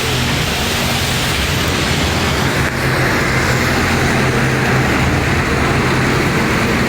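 Steady hiss of road traffic and rain on a city street, with a low engine hum underneath.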